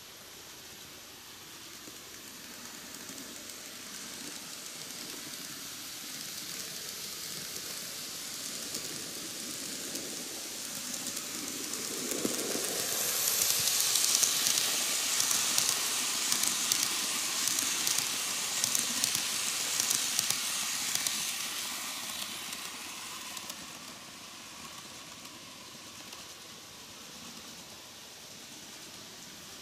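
KATO N-gauge D51 498 model steam locomotive and its coaches rolling along the track: a hissing rumble of small wheels and motor swells as the train comes near, peaks with light rapid clicking as it passes, then fades as it runs away around the oval.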